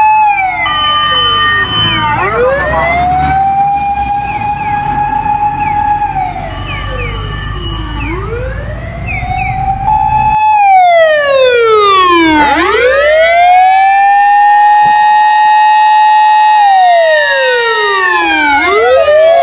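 Japanese fire engine's motor siren wailing: each cycle winds up, holds a steady high note, then slowly winds down, about every six seconds. The sound switches suddenly to a louder, clearer siren about halfway through.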